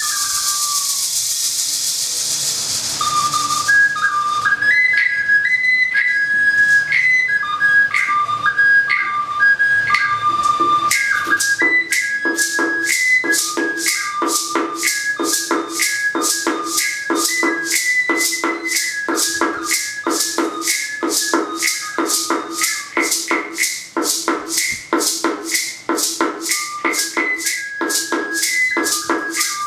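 Small Mesoamerican whistle flute playing a melody that steps between a few high notes. It starts over a hiss, and about ten seconds in a steady rattle and percussion beat joins at roughly two strokes a second.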